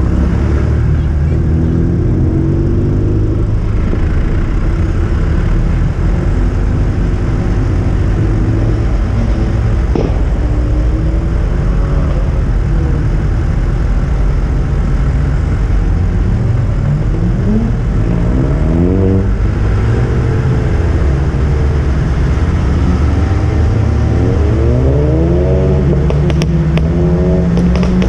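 Car engine under a steady low rumble, accelerating several times: the pitch climbs and then drops back, most clearly twice in the second half.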